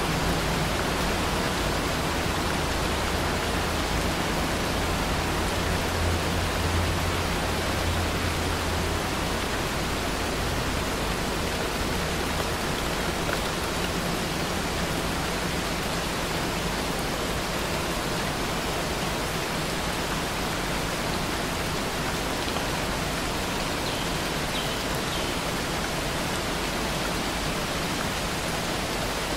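Steady, even rain hiss with no breaks. A low rumble swells and fades away about nine seconds in.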